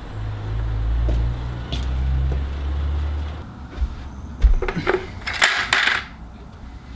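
Truck engine idling with a steady low rumble, which stops about three and a half seconds in; then a few thumps and a clattering rattle as a plastic bucket's wire handle knocks about and the bucket is set down.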